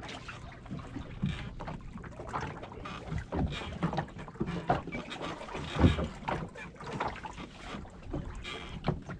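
Small open boat on choppy water: water slapping against the pirogue's hull, wind buffeting the microphone, and irregular knocks, the loudest about six seconds in.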